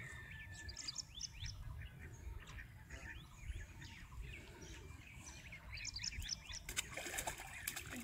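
Small birds chirping repeatedly, short high calls scattered through, over a low outdoor rumble. Near the end comes a burst of sharp splashing at the water's surface, where a hooked fish thrashes on the line.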